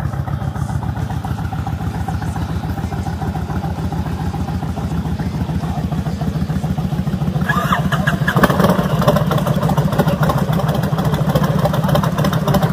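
Several V-twin cruiser motorcycles idling with a steady, fast, lumpy exhaust pulse. About eight seconds in, another engine joins and the sound grows louder.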